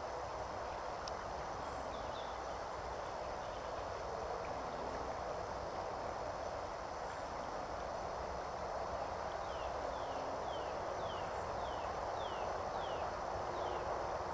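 Steady rush of river water flowing. In the second half a bird calls a run of short falling notes, about two a second.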